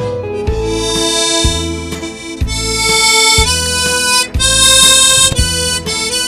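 Harmonica playing a slow song melody in long held notes over a backing track with a bass beat about once a second.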